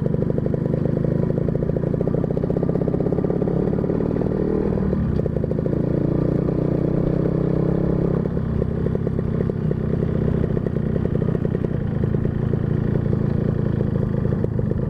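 Motorcycle engine running steadily while riding. It breathes through an air box filter on an oversized carburetor, so there is no intake snore. Its note shifts slightly a few seconds in.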